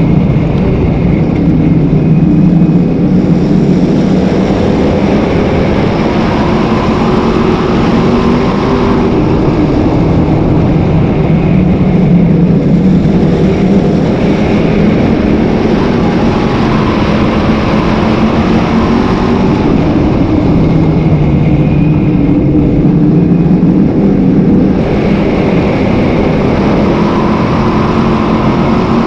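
Sportsman modified dirt race car's V8 engine at racing speed, heard from on board: the engine note climbs under full throttle and drops back as the driver lifts for each turn, over and over lap after lap.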